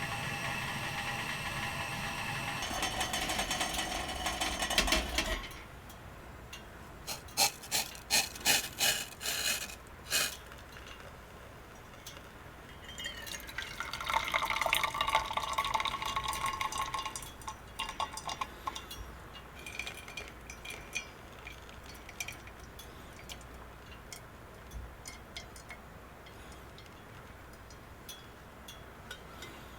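A steady ringing tone that stops about five seconds in, then sharp clinks of dishes and utensils, a few seconds of liquid being poured about halfway through, and scattered light clinks.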